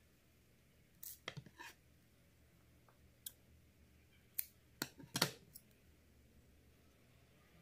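Metal scissors handled and snipping the crochet yarn tail: a scatter of short, sharp clicks, the loudest cluster about four and a half to five seconds in.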